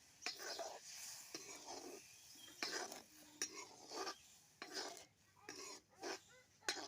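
Metal spoon scraping and clinking against a cooking pot while a curry is stirred, in irregular strokes about two a second.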